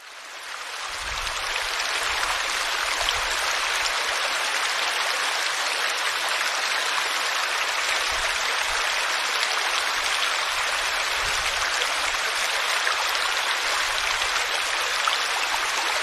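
Small stream spilling over a low cascade into a pool, running water splashing steadily. It fades in over the first couple of seconds.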